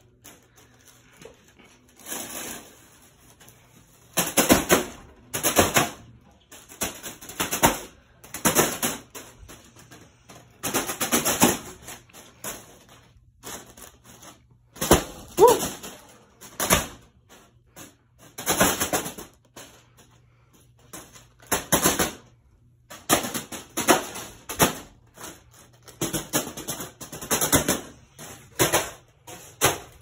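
Spinning ceiling fan blades repeatedly slapping a foil balloon held up into them: a rough crinkling whack about once a second, irregular in spacing, with a low steady hum underneath. The balloon takes the hits without bursting.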